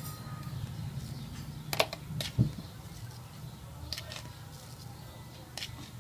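A metal spoon against an enamel pot of dry sugar: a few light, scattered clicks over a low steady hum.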